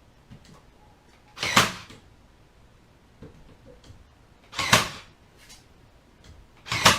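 Powertough 20V cordless 18-gauge brad nailer firing brads into wood three times, a few seconds apart. Each shot is a sharp crack, with a brief lead-in just before it.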